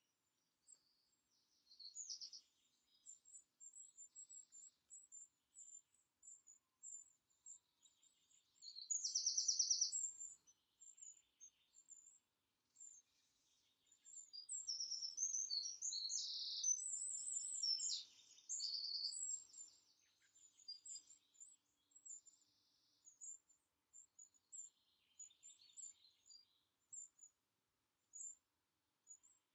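Small songbirds singing in a garden: a steady string of thin, high chips, with louder warbled song phrases about a third of the way in and again through the middle.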